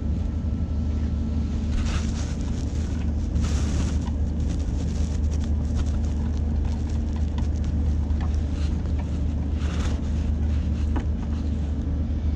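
Steady low machinery drone, with a few brief scraping or handling noises, near the start, at about three and a half seconds and again near the end.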